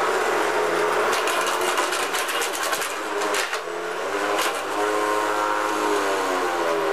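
Hoover Decade 80 vacuum's motor running with a whine and rapid rattling clicks that ease off after about three and a half seconds, the pitch then wavering. The fan has self-destructed, leaving only its hub spinning in the housing.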